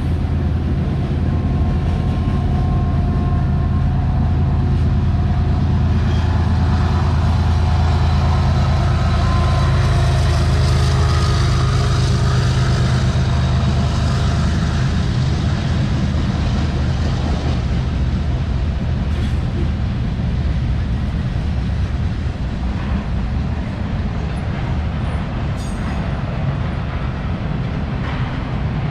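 Freight train passing: the deep, steady drone of diesel locomotive engines, loudest in the first half, gives way after about 16 s to the rolling noise of the freight cars, with a few sharp clicks near the end.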